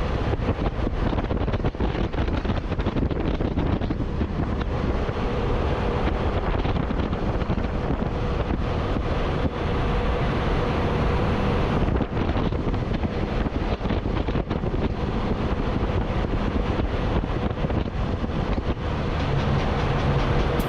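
Wind rushing over a camera mounted on the roof of a moving tractor-trailer's cab, over the steady engine and tyre noise of the truck at road speed.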